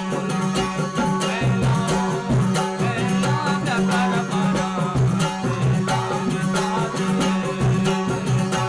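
Baloch folk music played live: a suroz (bowed fiddle) carries a wavering melody over the steady drone of a long-necked lute, with a barrel drum beating a regular rhythm.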